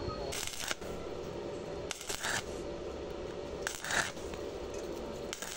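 Stick-welding arc from a 2.6 mm E6013 rod at 100 amps on thin steel tube, hissing in four short bursts about 1.7 s apart as the arc is struck and broken again, a stitch technique for thin metal. A steady hum runs underneath.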